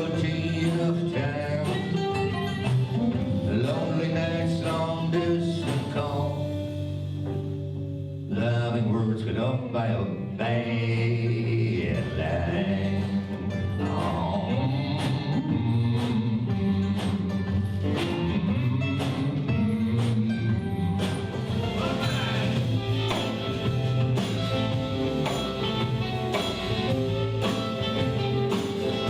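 Blues band playing live, an instrumental passage with guitar carrying the melody between sung verses.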